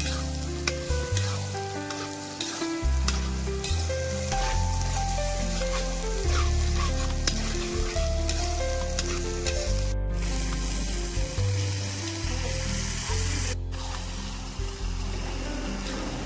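Chicken curry frying and sizzling in a pan, over background music with a moving bass line. The sound cuts out completely for a moment twice, near the middle and again a few seconds later.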